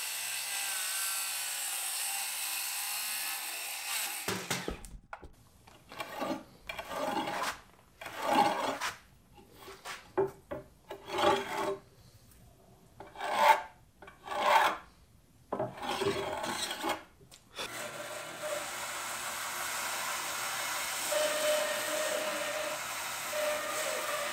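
A Ridgid circular saw cutting through the edge of a live-edge wooden slab, stopping about four seconds in. It is followed by a dozen or so short, separate scraping strokes on wood, roughly one a second. From about two-thirds of the way through, a Rikon 14-inch bandsaw runs steadily, with a few held tones, as it cuts the slab.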